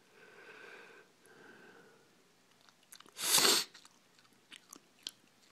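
Soft breathing, then a short, sharp nasal breath noise about three seconds in, the loudest sound here, followed by a few faint clicks.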